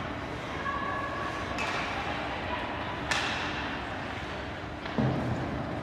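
Ice hockey play on the rink: a sharp crack of puck or stick against the boards about three seconds in, ringing on in the arena, and a heavier thud about five seconds in, over a steady rink hum.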